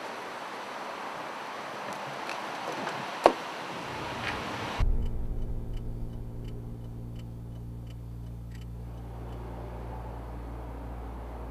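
Outdoor air with one sharp click about three seconds in. Then, inside a car cabin, the engine's steady low hum begins suddenly, with a regular ticking of two to three ticks a second for about four seconds.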